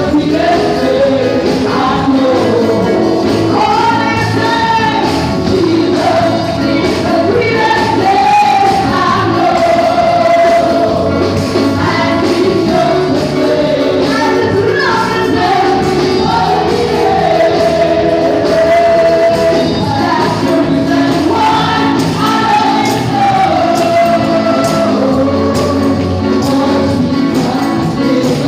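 A church congregation singing a gospel praise song together, many voices over instrumental accompaniment with a steady beat.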